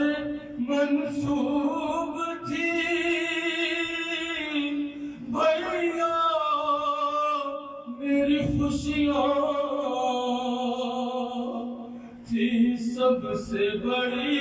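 A solo male voice singing an Urdu Shia devotional kalam (salam) in long drawn-out held notes.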